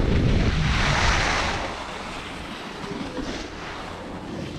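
Wind buffeting the microphone, a rushing noise with heavy low rumble that is loudest for the first second and a half, then drops to a quieter, steadier hiss.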